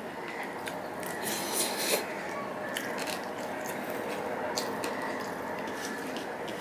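Puffed rice crackling and rustling as fingers mix it on a stainless-steel plate, with small clicks and scrapes of fingertips on the metal. It gets louder for a moment about one and a half seconds in.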